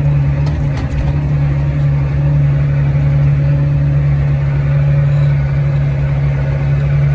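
Tractor engine running at a steady speed, heard from inside the cab as a constant low hum. A few light clicks come in the first second.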